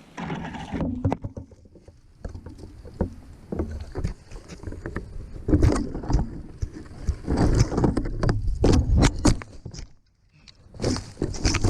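A run of irregular knocks, cracks and scraping close to the microphone, as a climbed structure breaks and the person climbing it falls, with a brief hush about ten seconds in.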